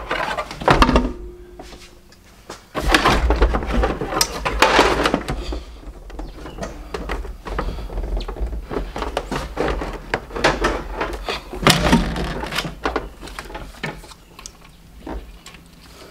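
Intake manifold being lowered onto the engine and set in place by hand: a string of clunks, knocks and scrapes of metal parts, busiest about three to five seconds in and again around twelve seconds.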